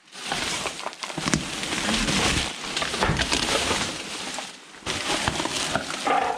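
Rummaging through a pile of discarded junk: continuous rustling and clattering with many sharp knocks, easing off briefly a little past the middle.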